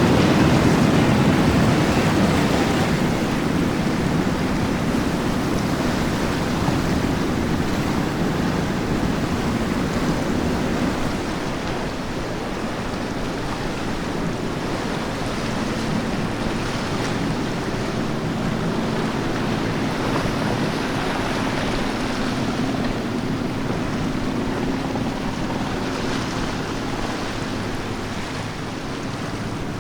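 Waves and surf with wind buffeting the microphone, and a boat's engine humming steadily under it from about halfway through.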